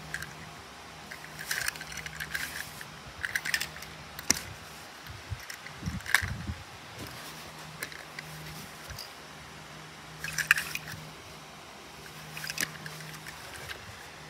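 Small toy cars handled by hand: scattered clicks, taps and short rustles as they are picked up, turned over and set down, over a steady low hum.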